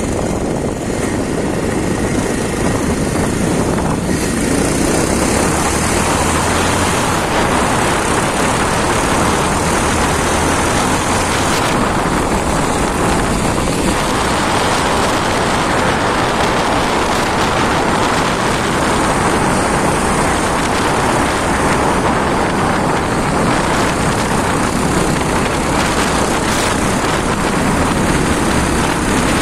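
A Bajaj Pulsar 220F's single-cylinder engine running under a steady rush of wind noise as the motorcycle rides along.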